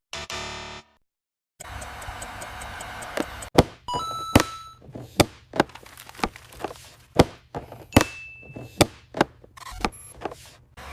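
A series of sharp knocks at uneven intervals, about one or two a second, with a couple of short electronic beeps in the middle; the sound cuts out completely for a moment about a second in.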